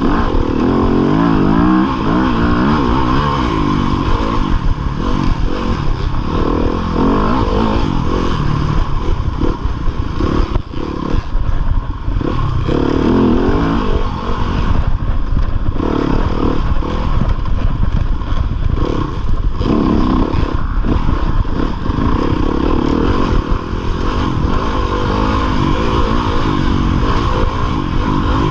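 2015 Yamaha YZ250FX's 250 cc four-stroke single-cylinder engine running hard under race throttle, its pitch climbing and dropping again and again as the rider shifts and chops the throttle, heard close up from the rider's chest.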